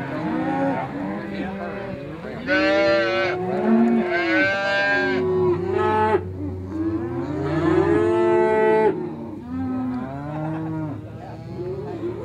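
A penned herd of long-horned cattle mooing, many calls overlapping one another. Three loud, drawn-out calls from animals close by stand out, about two and a half, four and eight seconds in.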